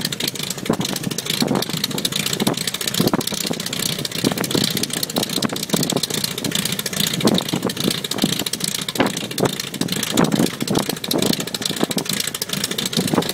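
Albatros D.Va biplane's engine idling on the ground with its propeller turning, a steady running sound with an uneven beat that swells and dips.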